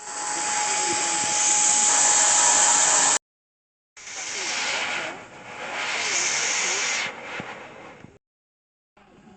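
Steam locomotive letting off steam: two loud bursts of high hissing, the first with a faint steady tone under it, each cut off abruptly.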